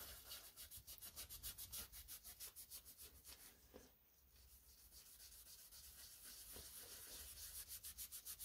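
Faint, quick back-and-forth scrubbing of a green abrasive scouring pad on the rusty, rust-dissolver-coated slideways of a lathe bed, in an even stroke rhythm. The strokes stop briefly a little under halfway through, then resume.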